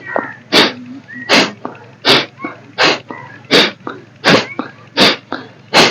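Forceful nasal exhalations in yoga breathing: sharp, rhythmic puffs of breath pushed out through one nostril while the other is held closed with the fingers, about eight puffs three-quarters of a second apart, in the kapalbhati style of exhaling only.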